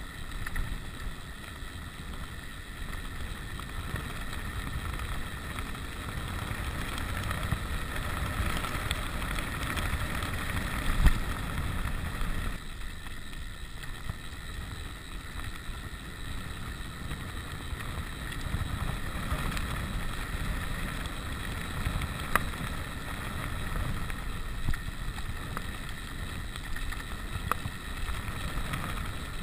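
Wind buffeting the camera's microphone as a rigid 29er mountain bike rolls over a gravel road, tyres crunching on loose stones. Occasional sharp knocks from the bike jolting over rough ground, the loudest about a third of the way in.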